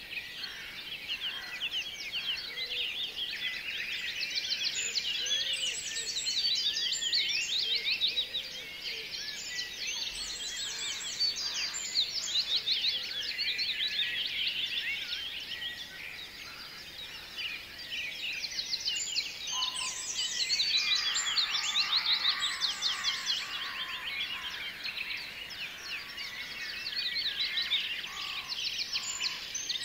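A dense chorus of many small birds chirping, rapid high chirps overlapping throughout and growing louder and softer in waves.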